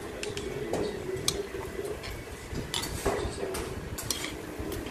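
Utensils clinking against a bowl while sauced jjolmyeon noodles with bean sprouts and cabbage are mixed: a scatter of short sharp clicks over soft stirring.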